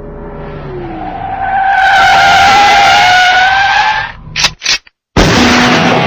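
Car tyres screeching in a long skid, building to a loud steady squeal for about two and a half seconds, then two short sharp bursts and a brief silence. Distorted electric-guitar rock music cuts in suddenly about five seconds in.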